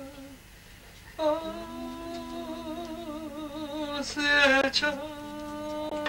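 Voices singing a slow song unaccompanied, in long held notes with vibrato. After a short break, a new note starts a little over a second in, and a second, lower voice joins it just after. The singing is loudest around four seconds in.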